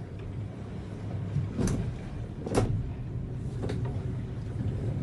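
A boat's motor running steadily at low revs, with three sharp knocks about a second apart, the middle one the loudest.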